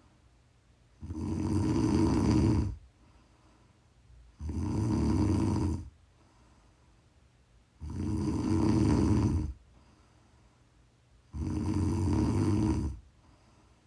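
A woman snoring in her sleep: four long snores, each lasting about a second and a half, coming in a steady rhythm about every three and a half seconds, with much quieter pauses between them.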